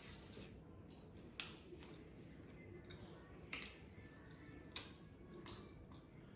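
Quiet eating sounds: three short, sharp mouth smacks or clicks spread over the few seconds, with fainter ones between, over a low steady hum.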